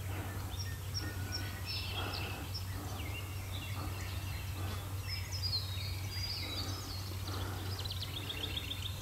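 Wild birdsong: many short chirps and trills scattered through, with a quick evenly repeated trill near the end, over a steady low hum.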